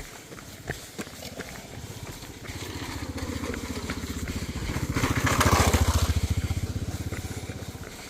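A motorbike passes by: its engine's rapid pulsing grows louder over a few seconds, is loudest just past the middle, then fades away.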